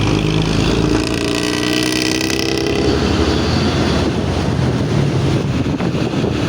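Bus engine running hard through a loud growling exhaust. It has a pitched note for about the first three seconds, then turns into a rough, noisy rumble with no clear pitch.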